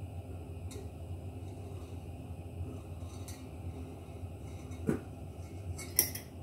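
Covered pan of popcorn kernels heating on the hob before any have popped: a steady low rumble with a few light clicks and taps against the metal pan and glass lid, a sharper one about five seconds in and the loudest just before the end.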